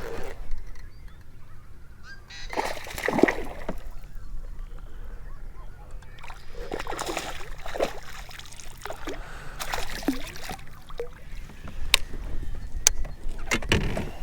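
Geese honking, several harsh calls spread through, with a couple of sharp clicks near the end.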